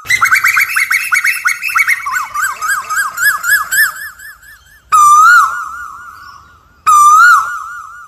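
Asian koel calling: a fast run of short, rising whistled notes, about five a second, for nearly five seconds. Then come two loud single whistled notes, each rising and falling, about two seconds apart, each fading away slowly.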